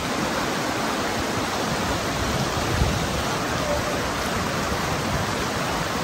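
Steady rushing water, an even roar with no break, with a brief low rumble about three seconds in.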